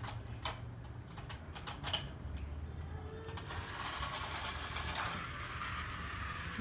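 Battery-powered Magic Tracks toy car running along its flexible plastic track, its small electric motor whirring steadily from about halfway in. Before that, light clicks and taps as the car is handled and set on the track.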